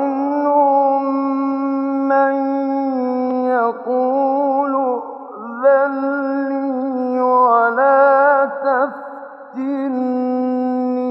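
A male Quran reciter chanting in the melodic tajweed style: long held notes with ornamented turns and a few brief breaks for breath. The recording is an old live one, with little treble.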